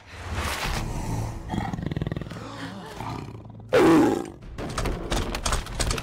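A big-cat roar for an animated snow leopard: one loud roar just past the middle, falling in pitch, after a lower, rougher growl. Rapid knocks and clatter follow it.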